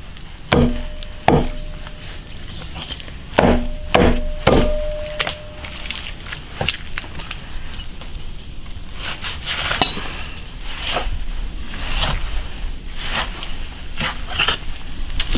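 Heavy cleaver chopping beef on a wooden chopping block: a few scattered knocks, some leaving a short metallic ring, then a quicker run of chops through the last several seconds.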